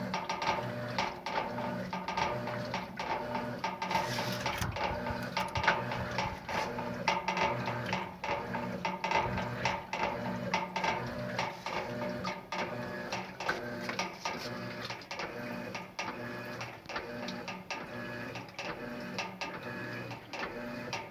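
Electrolux LES11 11 kg washing machine agitating a load of bedding: its motor hums in short repeated pulses, with clicks and knocks as the drum and load move.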